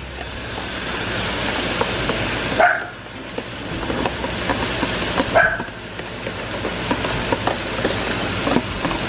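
Chicken and onions sizzling in a frying pan as dry glutinous rice is poured in, with a steady crackle. Two short, sharp yelps cut through, about three seconds apart.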